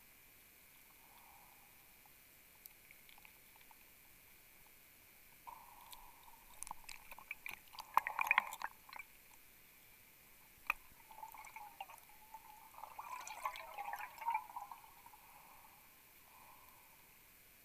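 Underwater handling noise, muffled through a camera housing: a diver's gear and camera moving and scraping against a wreck. Two bouts of rustling and crackling, about six and thirteen seconds in, with a single sharp knock in between.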